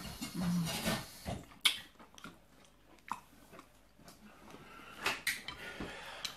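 A person chewing a mouthful of sate, with soft wet crackly eating sounds. A few sharp light clicks come at intervals, the loudest between one and two seconds in.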